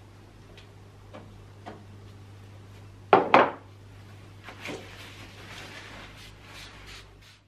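Household objects being handled and set down: a few light knocks, a loud double knock about three seconds in, then a rubbing sound, over a steady low hum.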